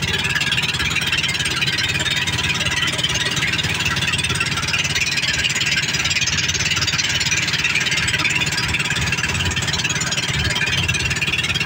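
Motorboat engine running steadily under way, with a steady rush of wind and water.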